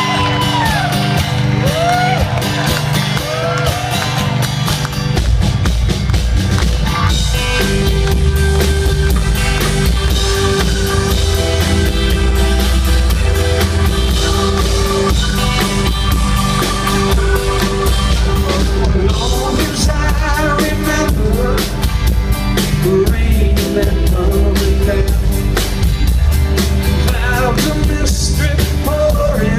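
Live rock band playing a song, with a steady drum-kit beat and bass.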